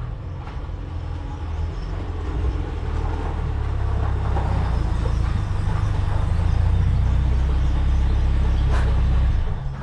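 Mk2 VW Polo GT running on the road: a low engine drone that grows steadily louder, then drops away sharply near the end.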